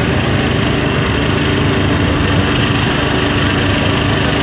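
Engine idling steadily, an even running sound with a few held tones.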